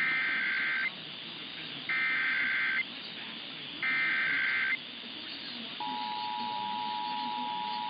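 Emergency Alert System SAME header: three buzzy bursts of data tones, each just under a second long and about a second apart. About six seconds in, the steady two-tone EAS attention signal begins, over a background hiss. Together they mark the start of a new EAS alert.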